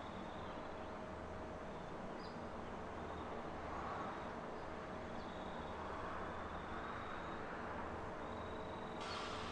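Comeng electric multiple unit rolling slowly toward the listener over the points, a steady low hum and rumble with a faint steady whine. A hiss sets in near the end.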